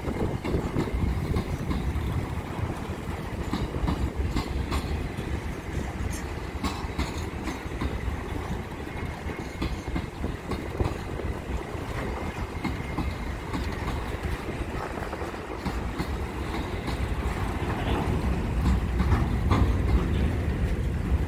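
Freight train wagons rolling past: a steady rumble of wheels on the rails with scattered clicks, growing louder near the end.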